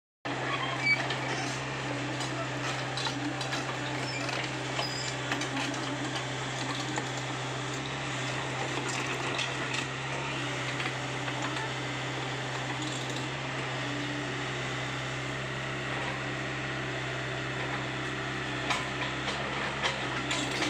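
Komatsu PC75UU excavator's diesel engine running steadily with a constant low hum, with scattered metallic clinks and rattles over it.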